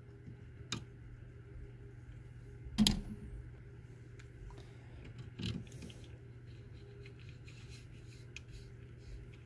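Hand tools working a small screw into the corner of a 3D printer's plastic hotend fan shroud: a few separate clicks and knocks, the sharpest about three seconds in and a duller one past five seconds, then faint scratchy ticks of a small screwdriver. A steady low hum runs underneath.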